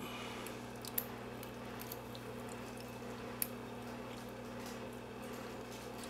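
Faint small metallic ticks of a lock pick working the pins of a brass pin-tumbler padlock, with two sharper clicks, one about a second in and one about three and a half seconds in, over a steady low hum.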